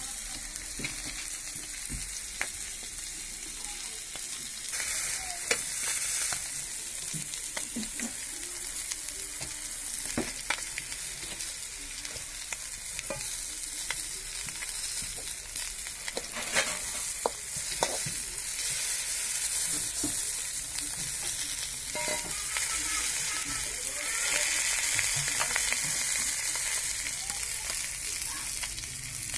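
Pieces of fish frying in hot oil in a pan: a steady sizzling hiss with scattered sharp pops, swelling louder a few times.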